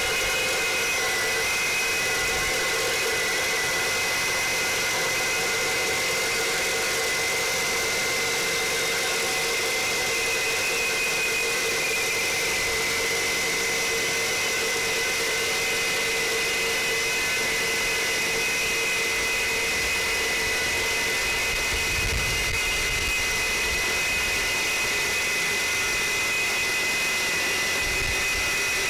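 Reciprocating saw with a Milwaukee Torch Nitrus Carbide metal-cutting blade running steadily under load as it cuts through half-inch steel plate, with a constant high metallic whine.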